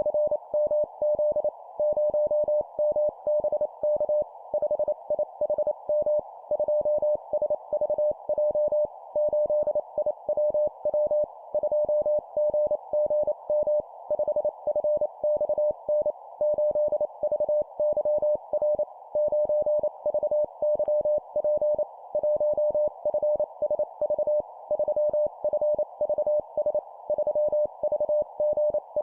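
Morse code (CW) sent at 25 words per minute: a single beep tone keyed in quick dots and dashes, in four-character groups of a number followed by three letters. It plays over a steady band of hiss.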